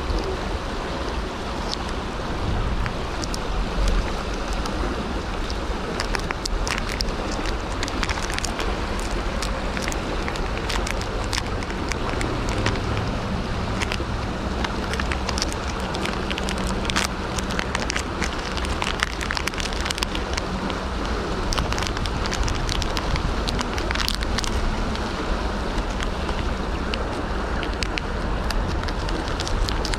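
River water rushing over a shallow riffle, a steady noise of running water, with scattered sharp close-up clicks and crackles from hands handling a plastic bait packet.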